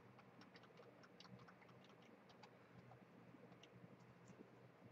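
Near silence with faint, irregular small clicks from a computer mouse as a page is scrolled and text is selected.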